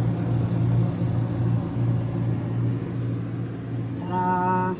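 Refrigerator running with a newly replaced fan motor, giving a steady low hum with no rattle or grinding: the weird noise is gone. About four seconds in, a short buzzing tone sounds for under a second.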